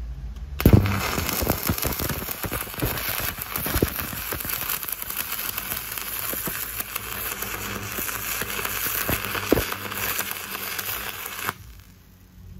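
Stick-welding arc at 100 A from a homemade welding inverter: struck with a sharp crack about half a second in, then crackling steadily with scattered pops for about eleven seconds, and cut off abruptly near the end when the arc is broken.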